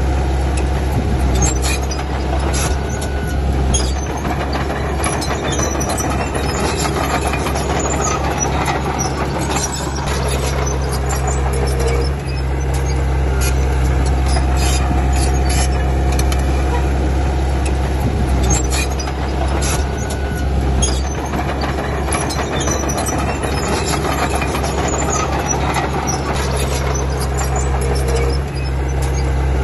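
Komatsu D31P crawler bulldozer's diesel engine running steadily under load, with frequent clicks and squeaks over it, likely from the steel tracks. The engine note dips briefly about every eight seconds.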